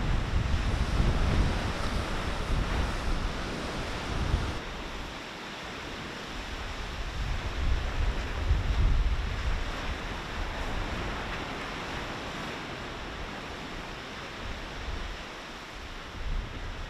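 Sea surf washing onto a beach, with wind buffeting the microphone in gusts. The sound shifts abruptly about four and a half seconds in.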